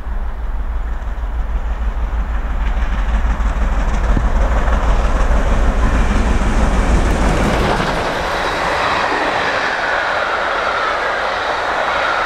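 Bulleid Merchant Navy class steam locomotive 35028 Clan Line, a three-cylinder 4-6-2, working hard on a climb as it approaches and passes close by. Its heavy low exhaust rumble builds and cuts off sharply about eight seconds in. After that the Pullman coaches roll past with wheel clatter over the rail joints and a thin high tone.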